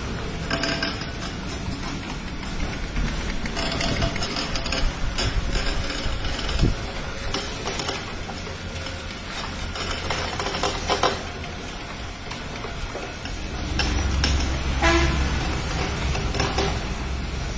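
Stone oil mill (chekku) crushing groundnuts: a steady low rumble from the turning pestle, with irregular scraping as the oily paste is pushed back by hand and a few short squeaks.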